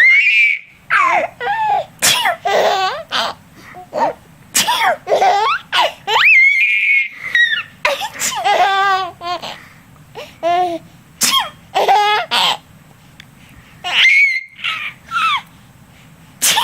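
A baby laughing in repeated bursts of giggles and high-pitched squeals, broken by an adult's sneezes ("achoo").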